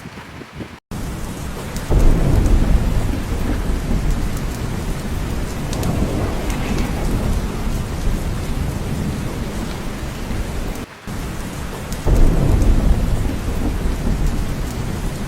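Steady heavy rain of a thunderstorm, with a deep roll of thunder setting in suddenly about two seconds in and another about twelve seconds in. The sound briefly drops out near the start and again about eleven seconds in.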